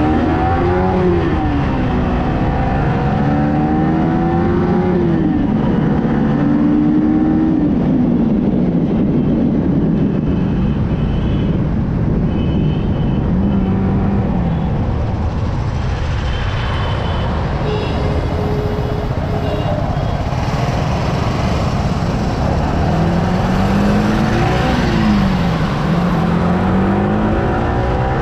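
Yamaha R15M motorcycle engine running at road speed, its note rising and falling several times with throttle changes and gear shifts, over steady wind and road rush on the microphone.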